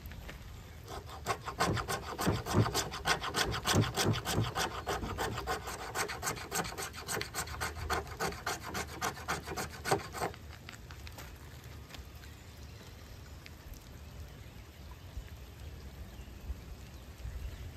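Fatwood being scraped with the spine of a knife to make fine tinder scrapings: fast, even rasping strokes, several a second, that stop about ten seconds in.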